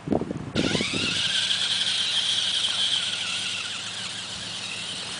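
Three-wheeled ATC engine revving: a high whine that climbs in pitch about a second in, then holds steady and slowly fades, after a few low thumps at the start.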